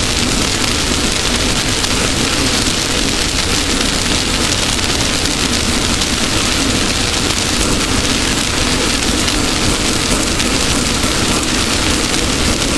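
Off-road race car driving at speed: a steady engine drone under a loud, even rushing noise of wind and dirt.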